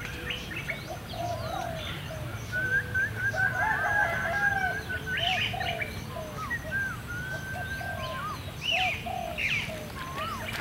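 Several birds calling: many short, bending chirps and whistles repeating throughout, with two longer held calls, one from about two and a half to four seconds in and another about seven seconds in.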